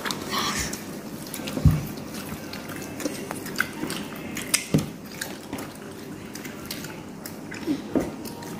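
Eating sounds: fried chicken being torn apart by hand and chewed, with scattered small clicks and short noises, over a steady low hum.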